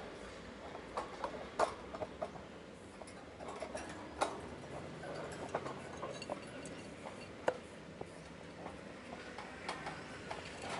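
Sugar glider's claws clicking and tapping on the wire bars of its cage as it climbs: irregular light ticks with a few sharper knocks.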